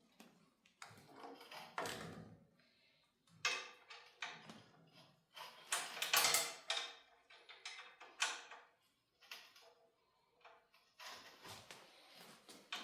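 Irregular clanks, scrapes and rattles of metal plow parts and hand tools being handled and fitted, in bursts with short pauses between.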